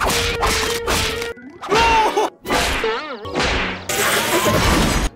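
Cartoon slapstick sound effects: a quick run of whacks over the first second or so, then sliding, wavering cartoon cries, and a steady hiss near the end.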